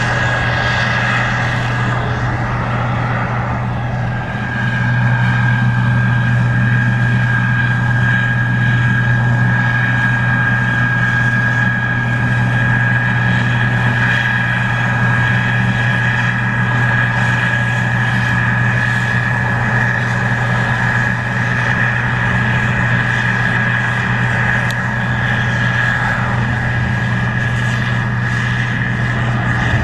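Case IH 2388 Axial-Flow combine running while harvesting corn: a steady engine drone with a steady high whine above it, growing louder about four seconds in.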